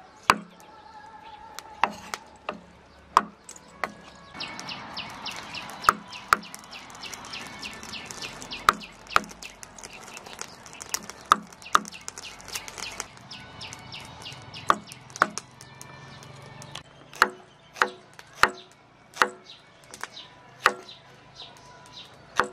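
A meat cleaver knocking sharply on a round wooden chopping block as it slices through blocks of cooked pig blood and then shallots. The strikes come irregularly at first and fall into a steadier rhythm of about one or two a second near the end.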